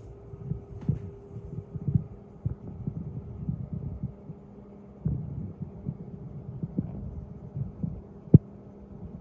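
Handling noise on a handheld camera's microphone: irregular low thuds and rubbing over a steady low hum, with one sharper knock near the end.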